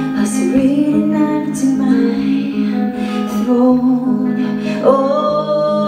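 A woman singing over a clean electric guitar, live. The chords ring out as held notes, and her voice slides up into long notes about half a second in and again near the end.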